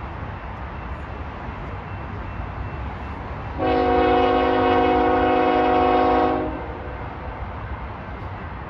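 Locomotive air horn giving one long blast of about three seconds, a chord of several notes, over a low steady rumble.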